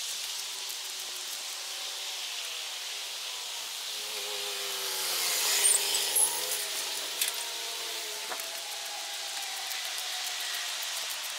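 Electric RC scale crawler's motor and gears whining, the whine sliding up and down in pitch with the throttle over a steady hiss. It gets louder for a couple of seconds around the middle, with a few sharp clicks.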